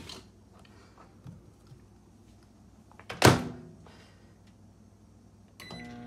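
Microwave oven being started: a loud sharp thunk about three seconds in, like the door shutting, then near the end a short beep and the oven begins running with a steady electrical hum.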